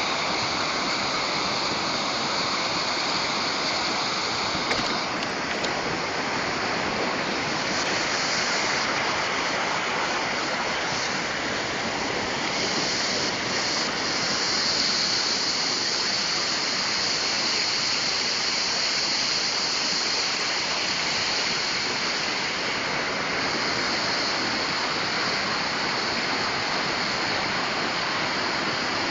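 Waterfall: water falling and rushing in a steady hiss, swelling slightly now and then.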